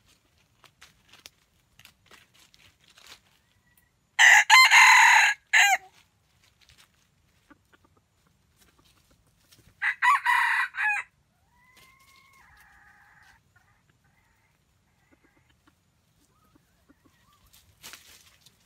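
A junglefowl rooster crowing twice, about five seconds apart, the first crow a little longer than the second, followed by a quieter call. Faint rustling ticks in dry leaf litter between them.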